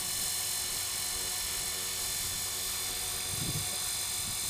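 450-size electric radio-controlled helicopter hovering hands-off in autopilot position hold. Its motor and rotor give a steady high-pitched whine over a low hum.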